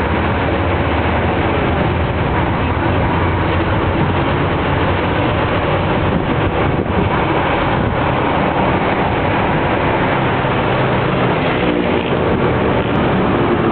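Jeepney's engine running, with steady road and traffic noise, heard from on board the moving vehicle.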